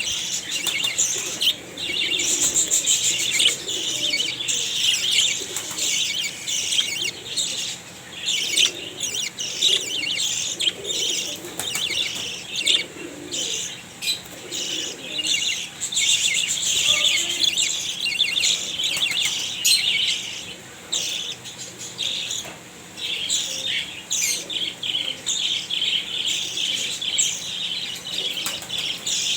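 A group of small cage finches chirping continuously in a busy high twitter, with frequent wing flutters as they hop and fly about.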